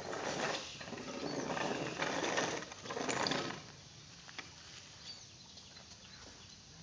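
Rustling swishes of drying paddy rice being pushed and raked with a long-handled hand rake, about four strokes in the first few seconds, then quieter with a few faint ticks.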